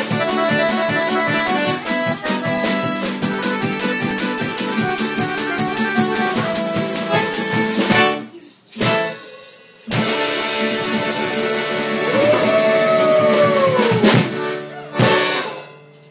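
Dance music with a jingling tambourine keeping a quick rhythm. It stops briefly about eight seconds in, then comes back. A long note bends up and falls away, and it ends on a final hit near the end.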